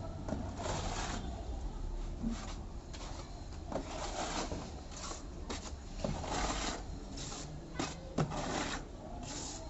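Irregular scraping strokes of a hand tool such as a blade or trowel worked over a textured wall coating, each stroke under a second long, over a low steady hum.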